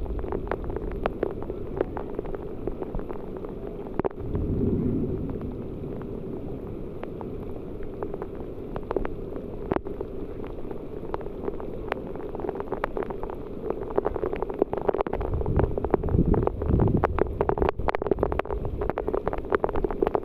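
Rain falling: a steady wash with many separate drops tapping close by. A low rumble swells about four seconds in and again from about fifteen seconds, where the drops also grow denser.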